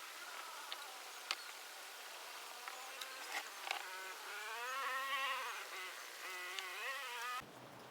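An insect buzzing close by, its pitch wavering and swelling up and down, with scattered light clicks.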